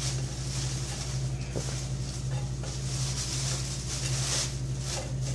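Scrambled eggs sizzling in a nonstick frying pan as a spatula stirs and scrapes them, with a few light clicks, over a steady low hum.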